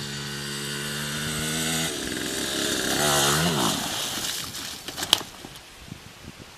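Small dirt bike engine buzzing, growing louder as it approaches, then revving up and dropping off sharply about three and a half seconds in. A couple of sharp knocks follow around five seconds in as the bike goes down in the mud.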